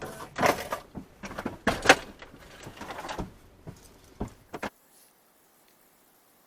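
A run of knocks and clunks, the loudest about two seconds in, then the sound cuts off to near silence.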